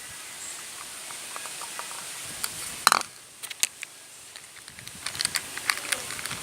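Clicks and clatter of small hard objects being handled, with one louder clatter just before three seconds in.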